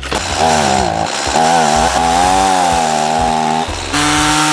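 Gasoline chainsaw cutting through a log to saw off a round. Its engine note wavers under load, dips briefly about a second in, and shifts pitch near the end.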